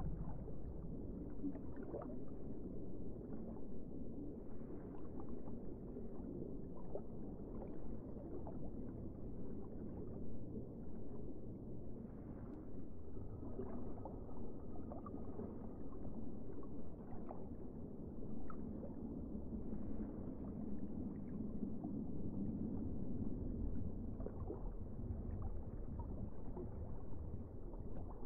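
Muffled underwater water noise from a submerged camera: a low steady rumble with scattered faint clicks and crackles, and a thin faint whine for a few seconds in the middle.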